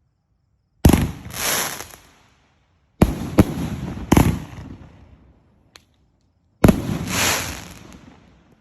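A 109-shot fireworks cake firing its shots: five sharp bangs at uneven intervals, each trailing off over a second or so, with a faint pop in a gap between them.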